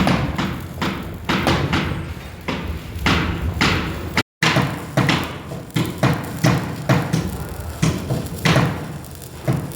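Repeated sharp knocks, about two a second, each with a short ringing tail, with a brief gap a little before the middle.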